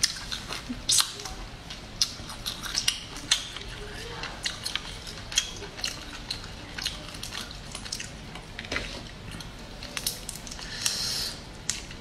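Boiled crayfish shells being cracked and peeled by hand, giving irregular small crackles and wet squishes, mixed with chewing and lip sounds.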